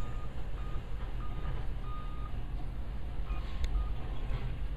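Short, high warning beeps at an uneven pace from railroad track-maintenance machines, over the steady low running of their engines. A single sharp knock comes about three and a half seconds in.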